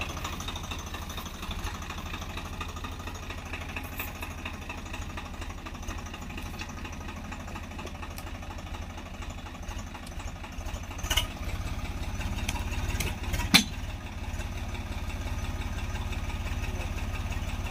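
Swaraj 742 XT tractor's 45 hp three-cylinder diesel engine running steadily under load as it pulls on a rope tied to a fallen tree trunk. A sharp crack about eleven seconds in and a louder one a couple of seconds later stand out over the engine.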